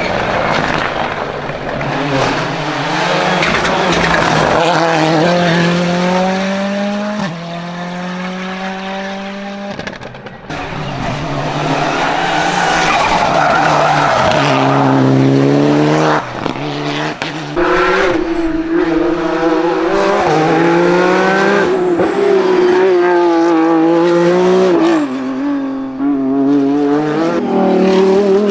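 Hillclimb race car engine at full throttle, the revs climbing and dropping sharply at each of several gear changes, with tyres squealing through a bend in the middle.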